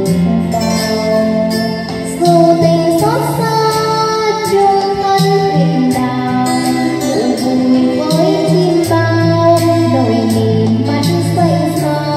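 Karaoke backing music for a ballad: a melodic lead line with held, gliding notes over a steady bass, with no clear sung words.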